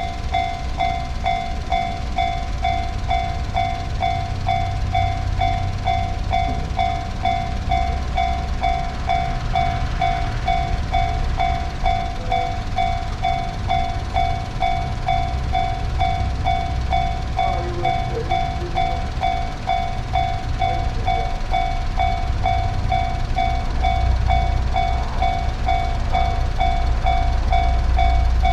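Japanese railroad crossing warning bell ringing, an electronic ding repeated in a steady, quick rhythm at one fixed pitch set. A low rumble builds near the end as a train approaches the crossing.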